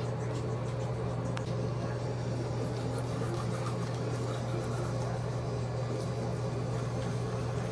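A steady low mechanical hum that does not change, with faint scrubbing of teeth being brushed.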